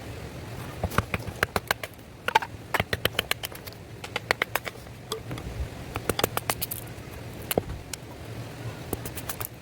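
Dry wood crackling and snapping: rapid, irregular sharp cracks in clusters, over a steady low hum.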